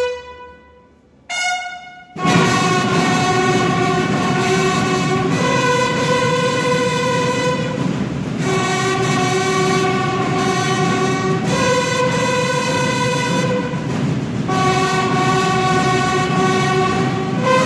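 Brass band playing a slow piece in long held chords, each about three seconds long, coming in fully about two seconds in after a brief pause.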